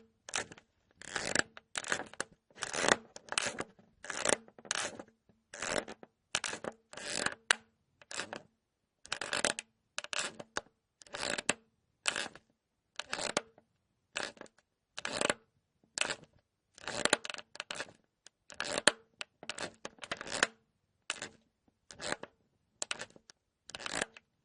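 Cartoon sound effect of crunchy, crackling squeaks: dozens of short bursts, each under half a second, a little under two a second with brief silences between them.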